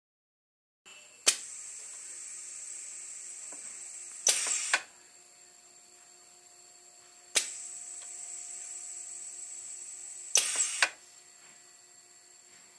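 Pneumatic air cylinder of a prototype ventilator cycling. It is driven by a solenoid valve and its rubber ram squeezes a 1500 ml resuscitator bag. Each stroke starts with a sharp click and about three seconds of steady hissing air, then ends in a short noisy burst as the ram releases, repeating about every six seconds.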